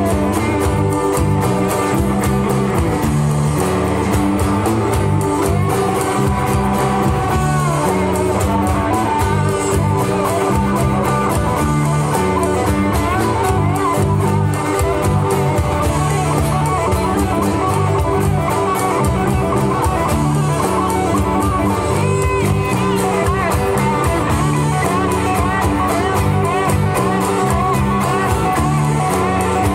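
A live rock band playing: electric guitars, acoustic guitar, bass guitar and drums at a steady beat, with guitar to the fore.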